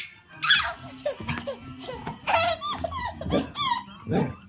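Baby laughing, a run of short high-pitched laughs with brief gaps between them.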